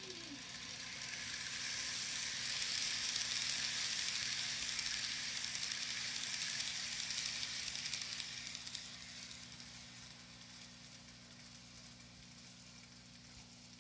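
N-gauge model train running past: a steady rushing hiss of its metal wheels on the rails and its small motor. It swells as the train approaches, holds loudest for several seconds while the lit coaches pass, then fades away.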